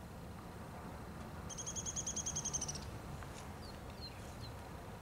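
A small bird's rapid trill of about a dozen quick high notes, lasting just over a second and starting about a second and a half in, followed by a few short falling chirps. A faint low rumble runs underneath.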